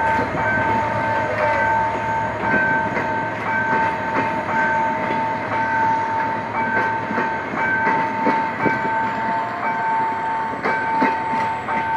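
Diesel-hauled passenger coaches rolling past, their wheels clicking over the rail joints. Throughout, a steady high tone sounds with regular short breaks.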